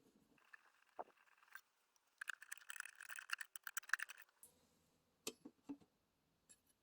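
Faint clicks, rattling and scraping of small hard metal and plastic parts being handled while a graphics card is taken apart. There is a dense run of rattling about two seconds in, then a few sharp clicks.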